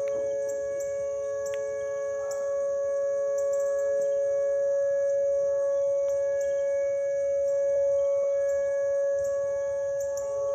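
Outdoor tornado warning sirens sounding a steady, unbroken tone during a scheduled siren test. A second, slightly lower tone fades out partway through and comes back near the end.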